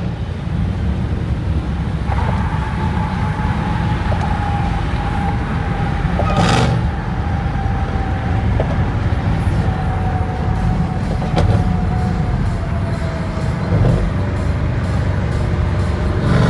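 Supercharged Hemi V8 of a Jeep Grand Cherokee Trackhawk with a Gthaus valved cat-back exhaust, heard from inside the cabin while cruising: a steady low exhaust drone with a thin supercharger whine that slowly falls in pitch as the car eases off. Brief rushes of noise come about six seconds in and again at the end.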